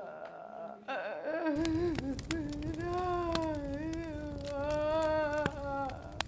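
A long, wavering, mournful wail held for several seconds, over the crackle and low rumble of a burning log fire, with sharp crackles scattered through it.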